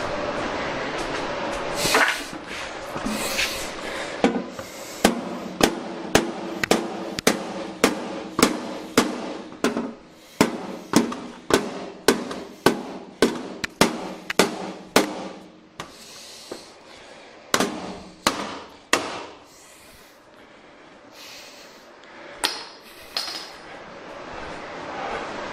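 Small sledgehammer beating a pickup's bumper back down to clear room for a new headlight unit. It is a fast run of hard metal blows, about two a second for some ten seconds, each with a brief ring, then a few slower blows.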